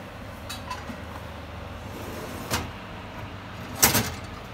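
Ceramic baking dish set onto a wire oven rack and the rack slid into the oven. There are a few clicks, then a loud metallic clatter near the end, over a steady low hum.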